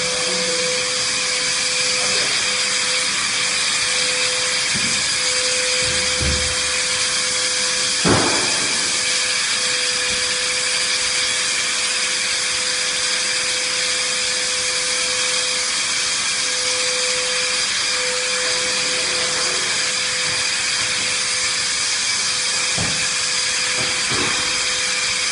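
Handheld electric disinfectant fogger running steadily: a constant hiss of spraying mist over a steady motor tone. A single knock about eight seconds in.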